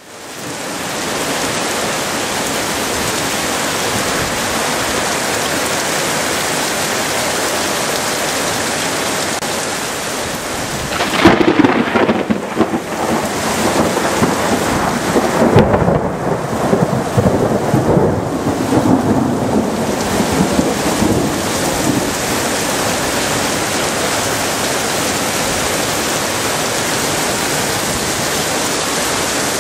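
Heavy rain falling steadily. About eleven seconds in, a sharp thunderclap breaks in and rolls on as rumbling thunder for about ten seconds before the rain alone carries on.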